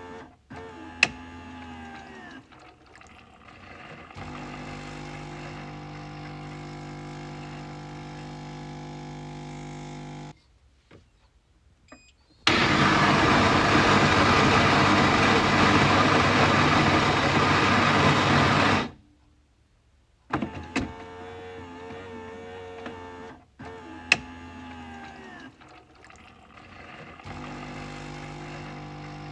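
Coffee machine running through its cycle: a steady motor hum with a sharp click about a second in, then a short pause, then about six seconds of loud, harsh rushing noise that stops abruptly. After another short pause come clicks and the steady hum again.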